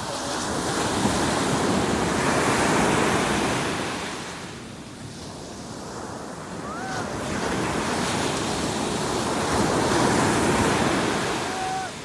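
Atlantic Ocean surf breaking and washing up a sandy beach, the rush of water rising and falling twice: building over the first couple of seconds, easing about halfway through, then swelling again before dropping away at the end.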